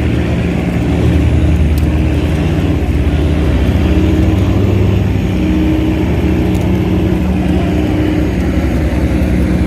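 A tugboat's diesel engine running steadily under load while towing heavy barges: a loud, low, continuous drone.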